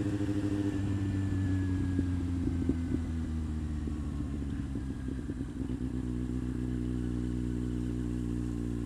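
Kawasaki Z750R's inline-four engine running at low revs. The revs ease down, then settle to a steady idle about six seconds in.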